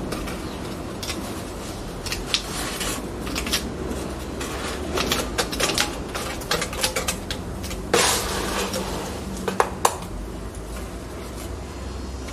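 Small metal trowel scooping wet concrete mix with gravel, scraping and clinking irregularly, with a few sharper clinks about eight and nine and a half seconds in.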